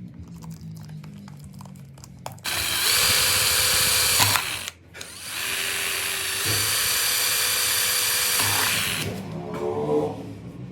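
Power drill running in two long bursts, about two seconds and then about four seconds, with a brief stop between. Background music underneath.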